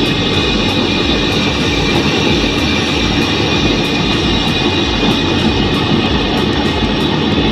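Home-made half-inch LPG jet burner driven by a 2-inch electric blower, running at full flame: a steady loud rush of burning gas and blown air with an even low hum under it.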